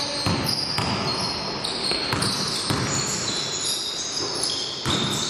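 A basketball being bounced on a court floor: a run of irregularly spaced thuds during play.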